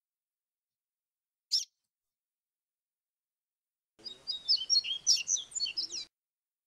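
Yellow-bellied seedeater (papa-capim) singing in the fluted 'grego' style: one short falling high note about a second and a half in, then a quick two-second phrase of varied whistled notes and trills starting about four seconds in. The gaps between are dead silent from noise reduction of the recording.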